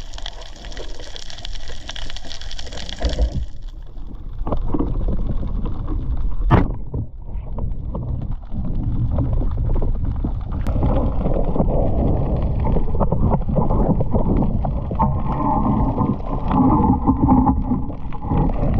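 Water sloshing and gurgling, with one sharp click about six and a half seconds in; the sound grows fuller and louder in the second half.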